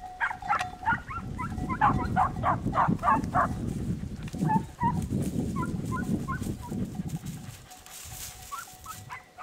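Podenco andaluz hunting dogs baying (giving tongue) on a chase: quick high yelps, several a second, for the first three seconds or so, then fewer, spaced yelps, over a low rumble.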